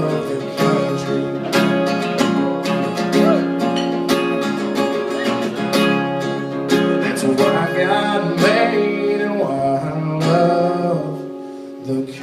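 Acoustic guitar strummed in the instrumental close of a live country song, dropping in level near the end.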